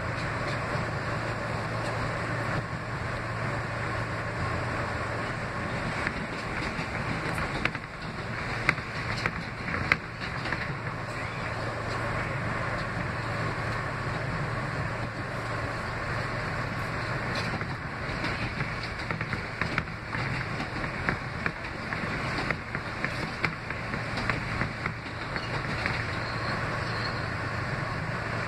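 Steady running noise of an R160B subway car heard from inside as it travels at speed: wheels on rail with a low hum, and a few sharp clicks around eight to ten seconds in.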